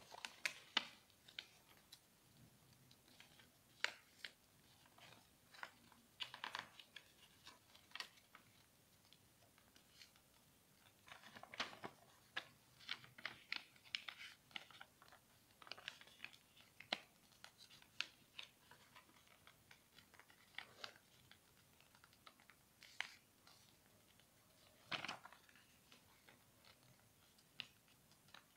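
A sheet of origami paper being folded and creased by hand on a tabletop: faint, scattered rustles and crinkles, busier in the middle stretch, with one louder crinkle near the end.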